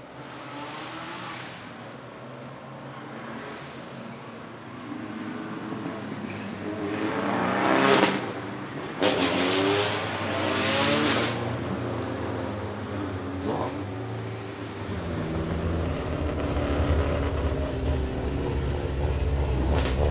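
Subaru Impreza WRC rally car's turbocharged flat-four engine revving, with several sharp cracks around the middle, then a deeper, louder running note building over the last few seconds.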